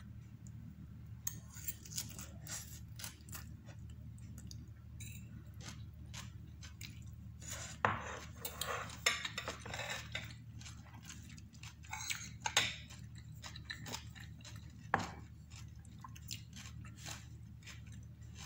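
A metal fork clinking and scraping on a plate while a person eats and chews. Sharp clinks come about eight, twelve and fifteen seconds in, with a stretch of scraping around nine seconds, over a steady low hum.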